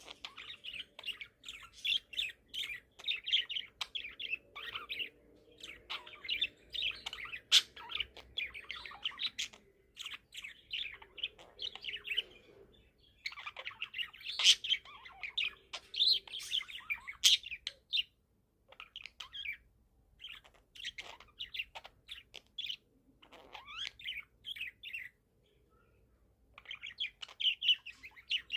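A young budgerigar (budgie), about four months old, chirping and warbling in rapid runs of short high chirps, in bouts separated by brief pauses.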